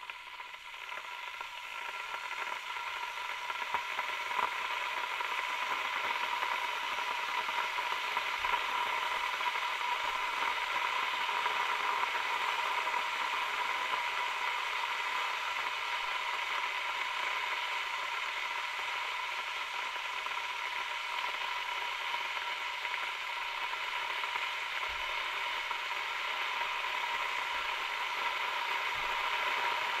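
Kettle boiling: a steady hiss that grows louder over the first few seconds, then holds even.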